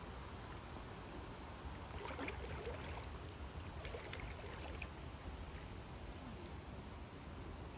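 Lake water lapping faintly against a rocky shore, with clusters of small trickling, splashing sounds about two and four seconds in over a steady low rumble.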